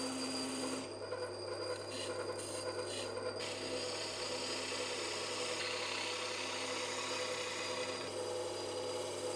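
Wood lathe running with a steady hum while a hand-held turning tool cuts a spinning maple blank down to its final diameter. For the first few seconds the cutting comes in short broken scrapes as a sizing cut is taken against calipers, then it becomes a continuous scraping rush as the tool works along the blank.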